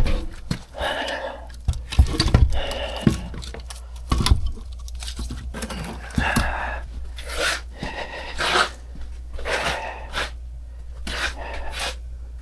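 Irregular scraping and rustling, a run of short noisy strokes a few tenths of a second each, like hands working at a small job, over a steady low hum.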